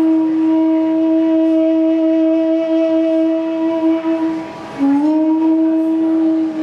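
Bansuri (side-blown bamboo flute) holding one long steady note; about four and a half seconds in it breaks off briefly and comes back with a short upward slide into the same note.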